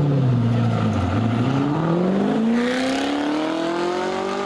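A high-performance car engine accelerating hard. Its pitch dips briefly about a second in, then climbs steadily through the revs.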